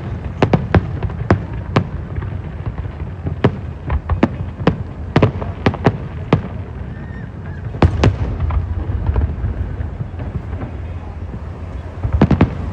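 Fireworks bursting overhead: a string of sharp bangs at irregular intervals over a steady low rumble, with a quick cluster of bangs near the end.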